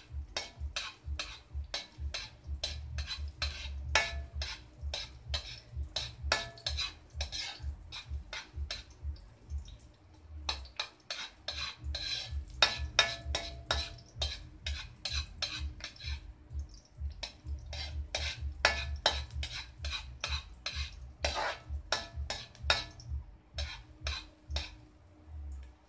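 Metal spatula stirring garlic and onion in a steel wok, clinking and scraping against the pan about two to three times a second with short metallic rings, with a brief pause about ten seconds in.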